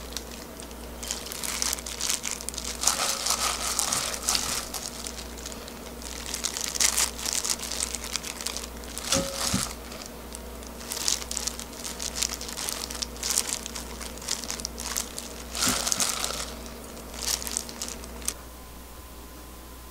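Clear plastic disposable glove crinkling as a gloved hand grabs and piles seasoned soybean sprouts into a dish, in irregular handfuls; the handling stops near the end.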